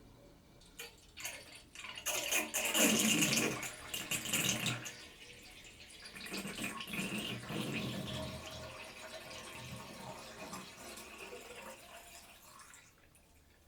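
Bathtub draining: water rushing and gurgling down the plughole in two spells, the first louder, tailing off near the end. A couple of short clicks come just before.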